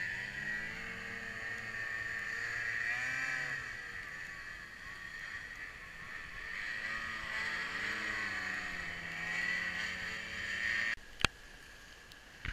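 Ski-Doo Summit 800 E-TEC two-stroke snowmobile engines revving up and down repeatedly as the sleds work through deep powder. About 11 seconds in the engine sound drops away suddenly, followed by a single sharp click.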